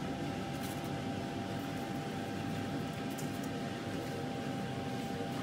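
Steady hum and hiss of a small room, with a faint steady tone and a few faint light ticks.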